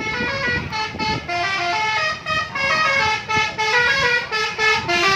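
A bus's multi-tone telolet horn playing a quick melody, its notes jumping in pitch several times a second.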